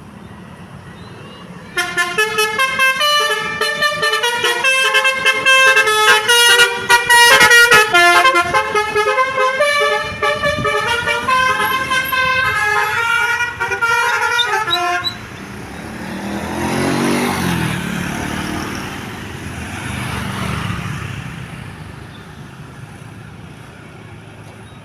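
Basuri V3 telolet multi-tone bus horn playing a fast melody of changing notes, starting about two seconds in and cutting off sharply near fifteen seconds. Afterwards vehicle noise swells twice and fades.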